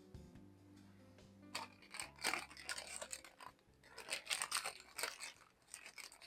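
Irregular crisp crunching strokes, starting about a second and a half in and coming several times a second, over soft background music.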